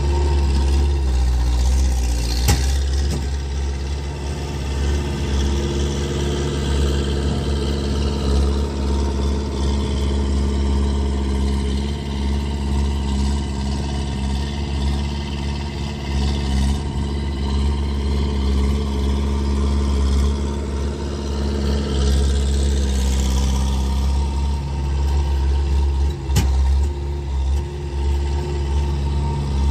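Skid steer engine running loudly under work, its speed rising and falling a little, with no proper exhaust fitted. Two sharp knocks, one a couple of seconds in and one near the end.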